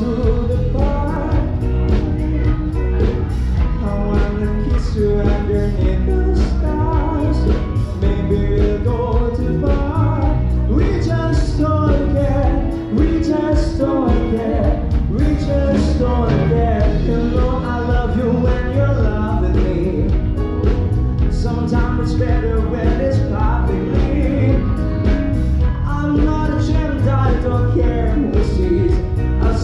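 A man singing lead into a microphone over a live band's music with a steady beat.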